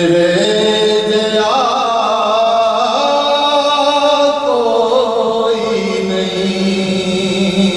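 A man chanting a naat, a devotional Islamic poem in praise of the Prophet, solo into a microphone, in long held notes that glide from one pitch to the next.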